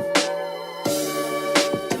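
Background music: sustained held notes over drum hits.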